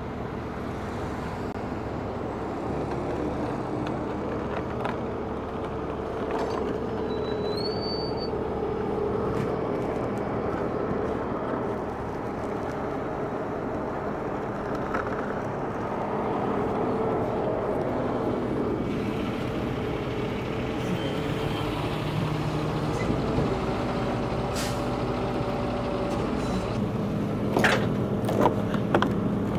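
Heavy tow trucks' diesel engines idling steadily, a constant low drone. A few sharp clicks or knocks come near the end.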